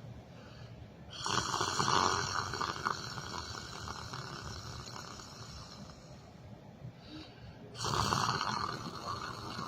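A person snoring in their sleep: two long snores, one about a second in and one near the end, each loud at first and tailing off over a couple of seconds.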